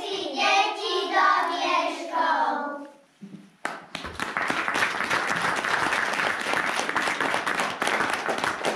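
A group of young children sings the last line of a song. After a brief pause, about three and a half seconds in, the audience breaks into steady applause that lasts about five seconds.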